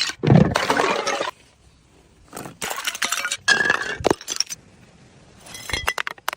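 A glass bottle smashing with a heavy thud just after the start and about a second of shards rattling, then separate glass clinks and small impacts in the middle and again near the end.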